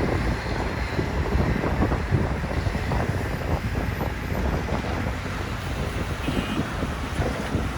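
Kobelco SK250 excavator's diesel engine running with a steady low rumble, with wind buffeting the microphone.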